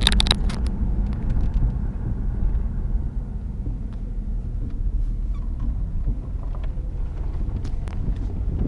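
1996 Jeep Grand Cherokee's 4.0-litre inline-six running as the vehicle drives: a steady low rumble of engine and road noise heard from inside the cabin, with a few sharp clicks right at the start.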